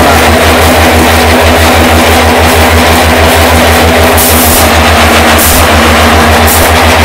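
Concrete block production machinery running loudly and without pause: a deep hum that pulses several times a second under a steady mechanical din. Short hissing bursts come about once a second in the second half.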